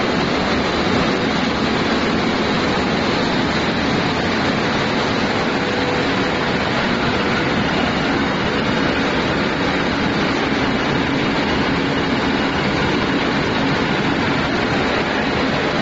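Seed cleaner and gravity separator running while cleaning cumin seed: a steady, even mechanical noise that does not change, with seed streaming off the machine's outlet.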